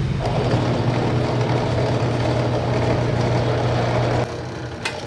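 Lotus 350 W (1/2 HP) benchtop drill press motor switched on and running with a steady, even hum, quiet and smooth. The hum stops abruptly about four seconds in when it is switched off, and a short click follows.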